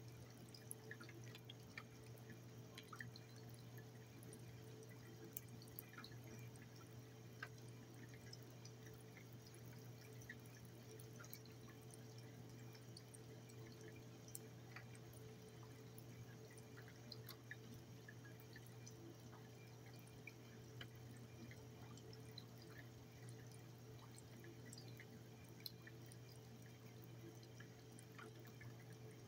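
Faint, irregular drips of rainwater, scattered small ticks over a steady low hum.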